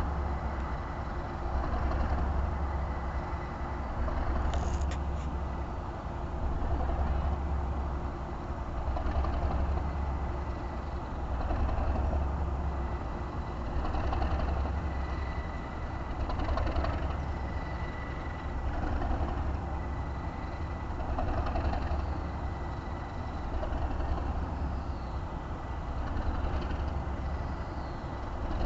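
Class 37 diesel locomotive's English Electric V12 engine idling with a steady low rumble that swells and fades evenly about every two seconds.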